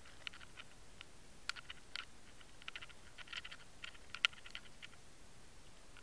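Faint, irregular clicking and ticking picked up underwater as the lure is retrieved, from the hook, snap and line hardware knocking against the line-mounted camera, with one sharper click a little past four seconds in.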